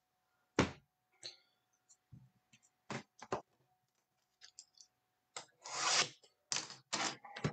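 Baseball trading cards and a cardboard hanger box being handled on a table: scattered light clicks and rubs, with a longer scraping rustle about six seconds in.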